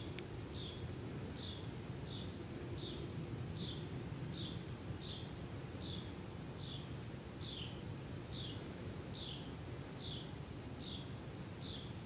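A small bird calling the same short, high, downslurred note over and over, about twice a second, over a steady low rumble.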